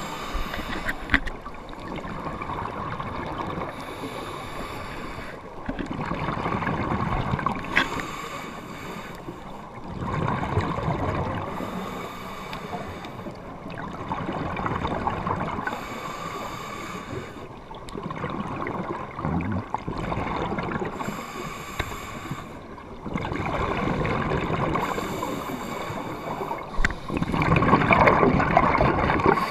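Scuba regulator exhaust bubbles gurgling past an underwater camera housing, in bursts every three to four seconds with the diver's breathing, over a muffled underwater rumble.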